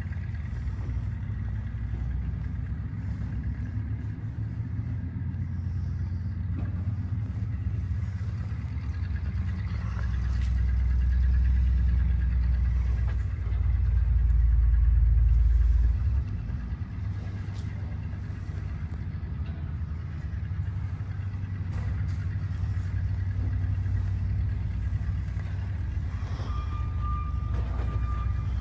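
A vehicle or machine engine running nearby with a steady low rumble. It grows louder for several seconds in the middle and drops off suddenly, and a reversing alarm beeps near the end.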